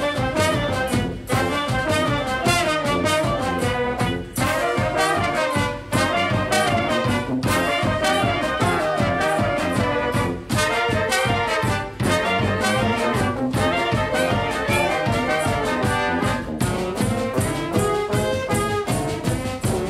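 Brass band (fanfare) playing a lively tune: brass melody and low horn lines over a steady beat.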